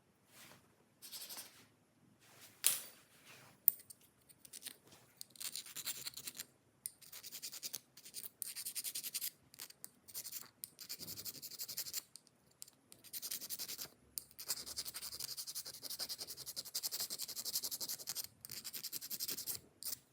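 Repeated scratching and scraping in bursts of one to several seconds, with two sharp clicks a few seconds in; the longest stretch of scratching comes near the end.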